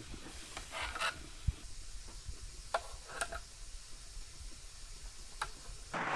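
Pot of bull hearts simmering on the boil, with scattered soft pops and clicks and a single low knock about a second and a half in. A steady hiss starts at the very end.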